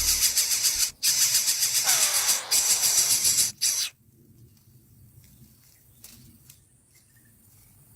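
Loud, high-pitched buzzing hiss of insects that drops out briefly a few times and cuts off abruptly about four seconds in, leaving only faint insect chirps.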